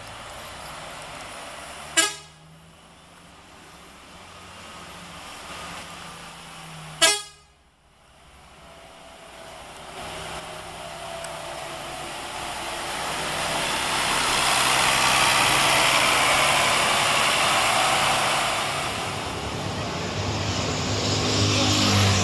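Two short, loud bus horn toots about five seconds apart, then a vehicle passing close by with rising road and engine noise. Near the end a low horn tone comes in.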